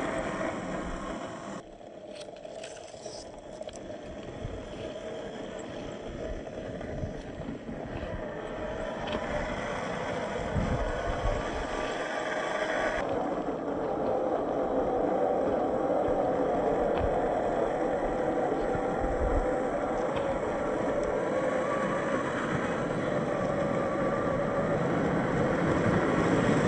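A 1/10-scale RC crawler's 27-turn electric motor and geared drivetrain whining steadily as it drives, with a few low thumps from the chassis and tyres on rough ground. The sound changes abruptly twice.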